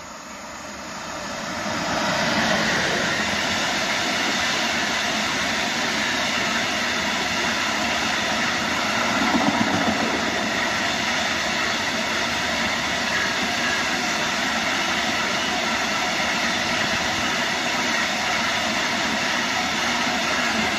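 Newag Dragon 2 (E6ACTab) electric locomotive passing at speed, hauling a long freight train of high-sided open wagons. The sound swells quickly over the first two seconds as the locomotive arrives, then settles into a steady, loud rush of wagon wheels running on the rails.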